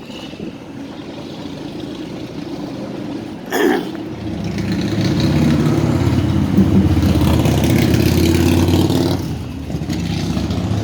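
A motor vehicle's engine passing close by on the street, building up about four seconds in, loudest for several seconds, then easing off near the end. Just before it there is a brief sharp sound.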